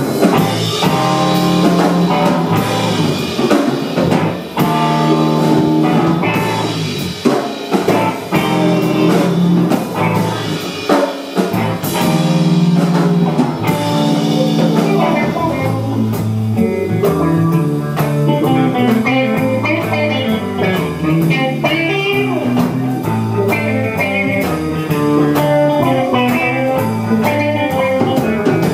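Live rock band playing: electric guitar over bass and drum kit, with a steady driving beat.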